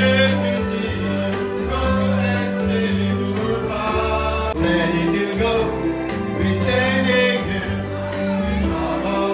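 Music with singing over held bass notes that change every second or so.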